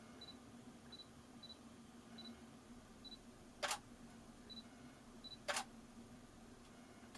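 Two short, sharp clicks about two seconds apart, a little past the middle, over a faint steady hum.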